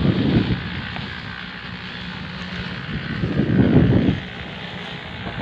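Wind buffeting the microphone outdoors: a low, gusty rumble that swells at the start and again about three and a half seconds in, over a steady fainter hiss.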